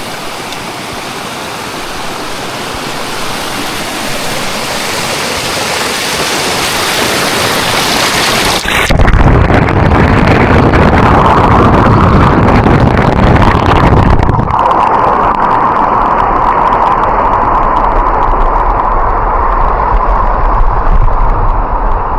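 Rushing creek water growing louder as the action camera nears it. About nine seconds in, the camera goes under the surface and the sound turns suddenly to a loud, muffled underwater rush, with the bright hiss gone.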